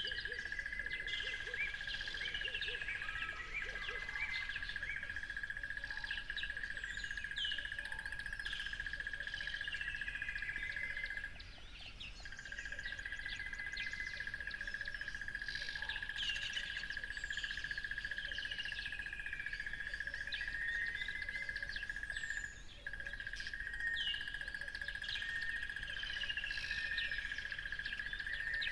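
Several birds chirping and singing, many short calls with quick falling notes, over a continuous steady high trill that drops out for about a second near the middle and again briefly later.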